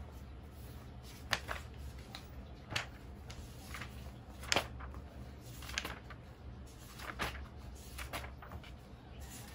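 Soft rustles and light ticks of paper as the pages of a printed textbook are handled and turned, a few separate sounds every second or so, over a low steady hum.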